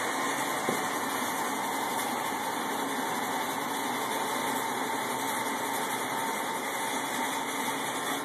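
Steady running noise of an inclined tram car moving along its track, heard inside the car, an even hiss with a faint steady hum.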